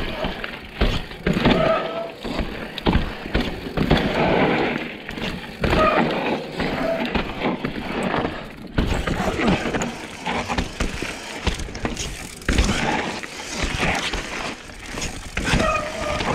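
Mountain bike rattling and clattering as it rides down a rough, rocky downhill trail, with repeated sharp knocks from the wheels striking rocks and steps.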